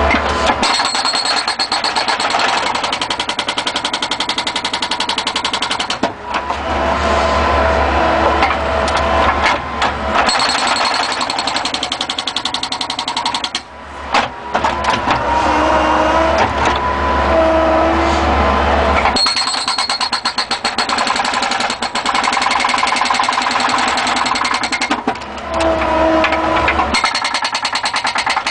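Bobcat skid-steer loader working hard: engine under load with hydraulic whines rising and falling over a fast steady rattle. The sound changes in sections with short breaks as the machine's work shifts.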